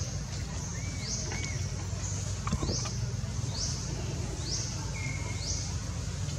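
Outdoor forest ambience: a short, high, upward-sweeping chirp repeating about once a second, likely from a bird, with a few softer calls lower in pitch and a brief sharp sound about two and a half seconds in, over a steady low hum.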